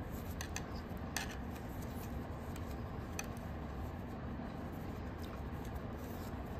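Knitting needles clicking faintly a few times as stitches are worked, over a steady low hum.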